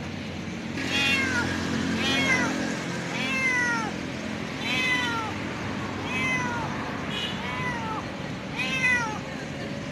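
A hungry cat meowing for food: about seven separate meows, one every second or so, each rising and then falling in pitch.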